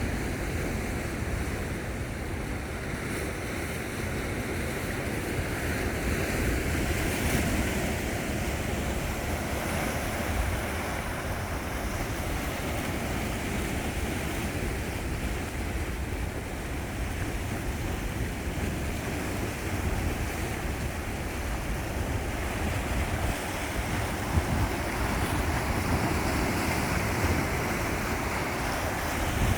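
Sea waves washing steadily against the shore, swelling and easing, with wind rumbling on the microphone.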